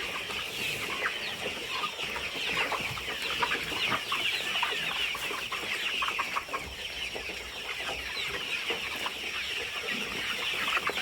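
A large flock of ten-week-old pullets clucking and cheeping, a dense, steady chatter of many short overlapping calls.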